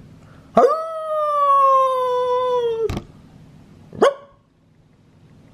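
A long, steady canine howl that sags slightly in pitch and cuts off abruptly after a little over two seconds, followed about a second later by one short rising yip.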